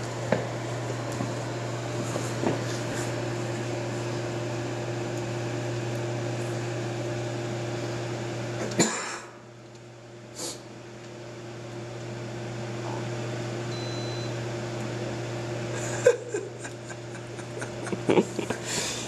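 Automatic pancake machine humming steadily while it cooks and carries a pancake out. About nine seconds in the hum drops away after a click, then builds back up over the next few seconds, with a few sharp clicks near the end.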